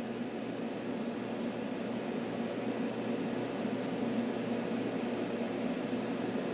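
AC TIG welding arc on aluminum, a steady buzzing hiss that holds an even level throughout.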